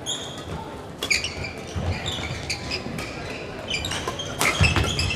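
Badminton doubles rally: court shoes squeaking and thudding on the wooden floor, with sharp racket-on-shuttlecock hits about a second in and again near the end.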